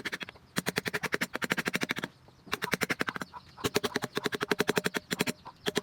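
Rapid, even tapping on a wood carving tool, about a dozen sharp strikes a second, in bursts of a second or so separated by short pauses.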